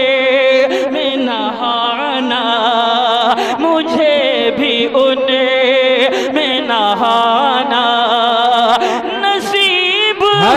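Male voice singing a naat, an Urdu devotional poem in praise of the Prophet, in long ornamented phrases with a strong vibrato. There is a short break near the end.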